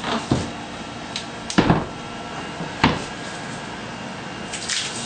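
A few knocks and bumps from a shower wall panel being set in place and pressed against the siliconed wall, with three sharp knocks in the first three seconds.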